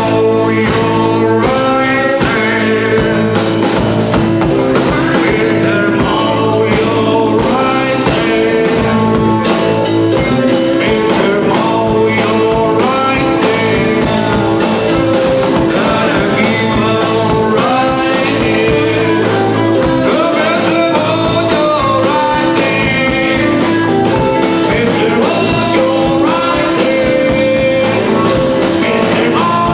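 A rock band performing live, with singing over guitar, bass and drums, playing steadily without a break.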